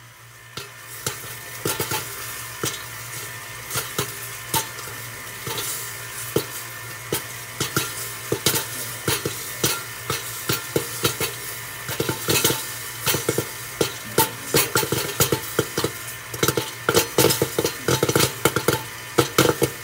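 Popcorn kernels popping in the hot oil of a popcorn machine's kettle, a few scattered pops at first, building to rapid popping by the second half. Under the pops runs the steady hum of the kettle's agitator motor.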